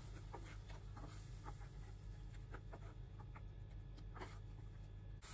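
Wooden spatula stirring and scraping a thick tomato-onion masala around a non-stick frying pan: quiet, irregular scrapes about two a second, over a steady low hum.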